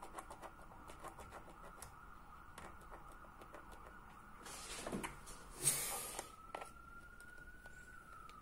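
Faint siren holding a steady high tone, then rising a little and beginning a slow downward slide near the end. Over it come small scattered clicks and two short scraping rustles a little past the middle, the second the loudest sound.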